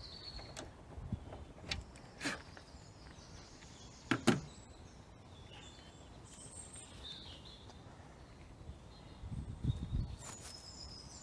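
A few scattered clicks and knocks of tools and small hardware being handled at a car door, the loudest knock about four seconds in, with a low rumble near the end.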